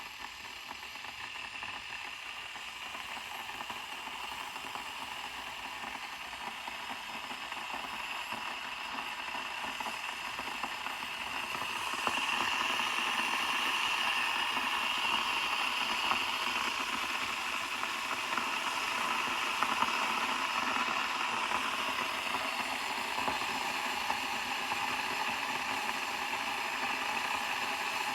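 Chefman glass electric kettle heating water: a steady rushing noise that grows louder as the water nears the boil, stepping up about twelve seconds in.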